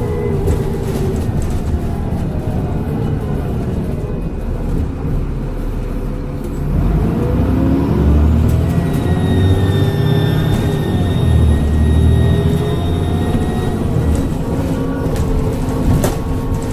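Transbus Trident double-decker bus engine pulling harder after about seven seconds, with a high turbocharger whistle that rises and falls over the next several seconds.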